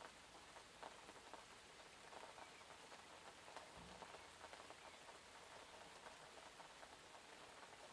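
Faint, steady rain pattering on a surface, with many small drop ticks, and a brief low thud a little under halfway through.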